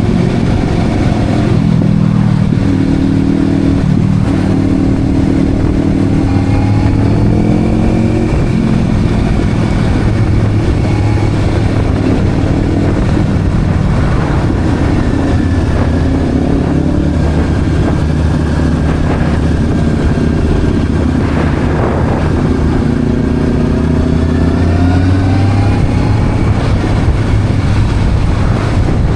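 Sport motorcycle engine running on the move, its pitch rising and falling with throttle and gear changes, over steady road and wind noise.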